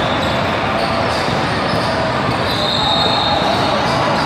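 Basketball game in progress: a ball being dribbled under the steady noise of spectators' voices.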